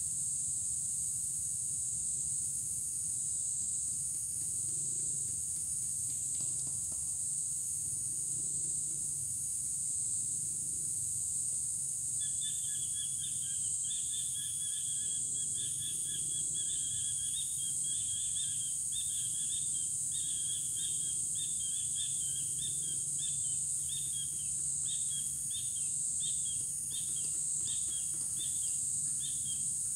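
Steady high-pitched chorus of insects. About twelve seconds in, a bird starts calling in short, quick, repeated chirps, about two a second.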